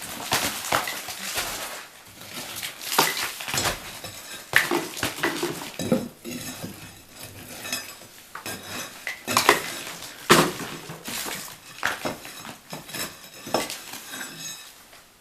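Old brick and mortar being broken out of a wall by hand, with an irregular run of sharp knocks and clinks as pieces are struck, pried loose and clatter down.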